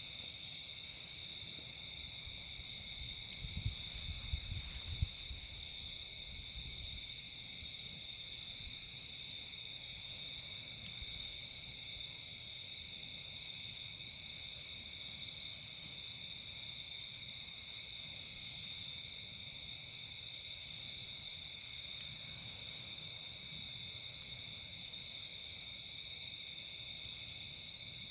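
Steady chorus of insects such as crickets, with a second, higher insect call that comes back about every five or six seconds. A few low thumps fall about four seconds in.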